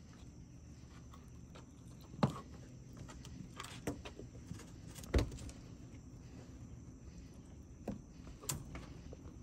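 A handful of short, sharp knocks and clicks, the loudest a little past two seconds and about five seconds in, over a faint, steady high insect trill.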